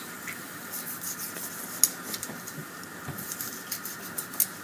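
Butcher's knife cutting around a pig's leg joint: faint scattered clicks and scratches of the blade working through skin and meat, over a steady background hiss.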